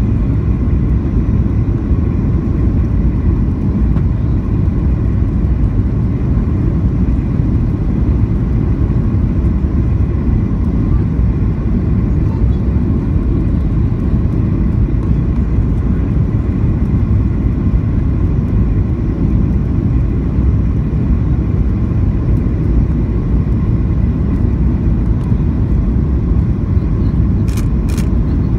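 Steady low roar of engines and airflow inside the cabin of a Boeing 737-800 on approach with flaps extended, with a faint steady whine of CFM56 engine tones over it. Two short sharp clicks come near the end.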